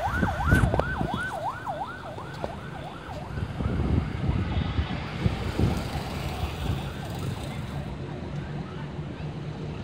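A siren yelping rapidly up and down, about three sweeps a second, fading out within the first three seconds. Road traffic follows, with a car and a motorcycle passing.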